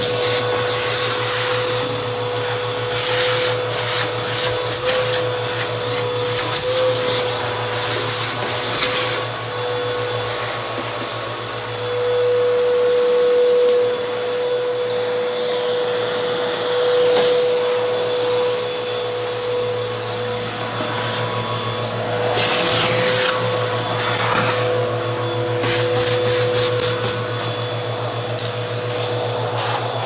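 Bissell vacuum cleaner running steadily with a constant motor whine, its hose sucking up debris from a bare, gritty floor, with brief crackling surges as grit and scraps rattle through several times.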